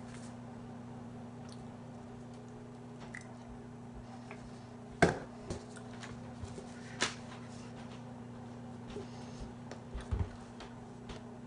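A low steady hum under a few sharp knocks and taps: the loudest about five seconds in, a lighter one about seven seconds in and a quick pair near ten seconds.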